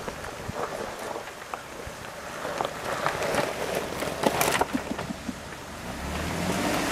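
Tyres of a Jeep Wrangler Unlimited Rubicon crunching and popping over loose gravel and rock as it crawls slowly downhill, with scattered small clicks from stones. A low engine hum comes up near the end.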